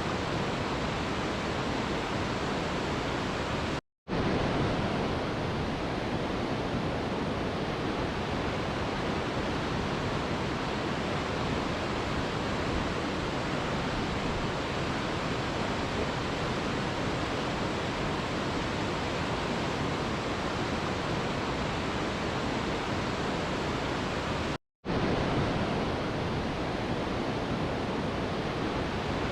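Steady, even rushing of a waterfall, cutting out to dead silence for a split second twice, at the seams of the loop.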